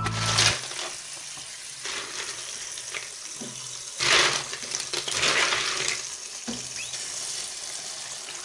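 Water running and splashing over live snails in a plastic basin as they are rinsed, a steady rushing with louder surges about four and five seconds in.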